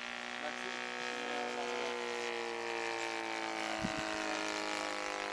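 Engine of a quarter-scale Ryan SC-W radio-controlled model airplane running steadily in flight, a droning tone whose pitch sags slowly as the plane passes.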